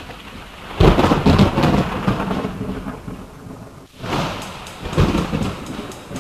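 Thunderstorm: steady rain with rolling thunder, swelling loudest about a second in and again about five seconds in.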